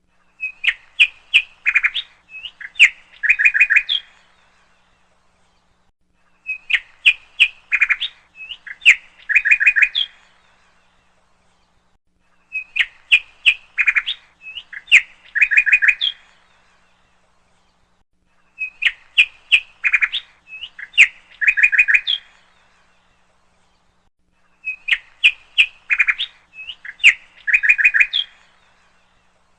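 A short phrase of bird chirps, quick sharp notes followed by a trill-like run, that repeats identically about every six seconds with silence in between. It sounds like a looped recording or ringtone rather than a live bird.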